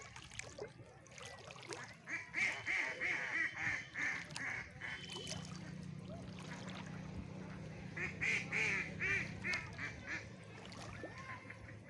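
Two runs of rapid, repeated bird calls, each lasting two to three seconds: one starts about two seconds in, the other about eight seconds in.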